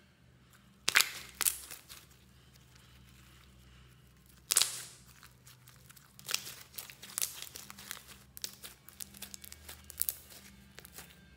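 Hands squishing, stretching and pressing clear slime packed with small foam beads, making sticky pops and crackles. A few loud snaps come about a second in and again near the halfway point, then a run of smaller crackles.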